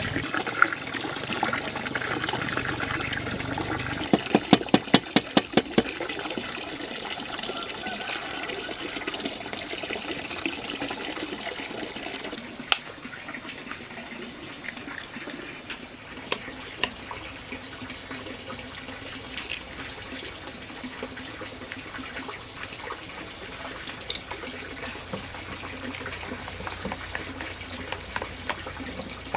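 Water running and splashing, louder for the first dozen seconds and quieter after, with a quick run of about eight knocks around four to six seconds in and a few sharp clicks later.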